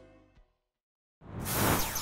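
Instrumental closing music fading out, a moment of silence, then a loud rising whoosh of an animated logo sting starting about a second in, with sweeping tones.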